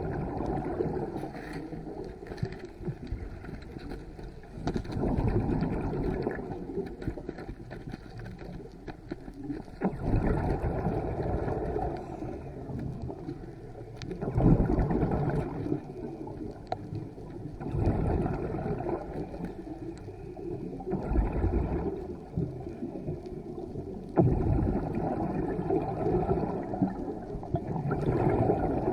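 Muffled underwater sound with gurgling bursts of a diver's exhaled bubbles, swelling about every three to four seconds.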